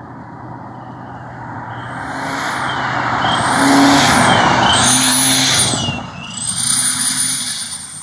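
Four-cylinder Mazda 626 driving past with a cheap turbo whistle fitted in its exhaust. Over the engine and exhaust noise, a high whistle rises and falls about three times, then holds one steady pitch as the car pulls away. It is loudest as the car passes about four seconds in.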